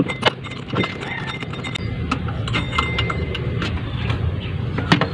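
Sharp metal clicks and knocks of a socket tool on the power steering pump's adjuster bolt and bracket, three near the start and one near the end, over a steady low rumble.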